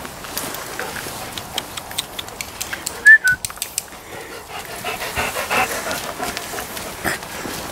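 Dogs close by, one giving a short, sharp, high yelp about three seconds in, amid light clicks and rustling.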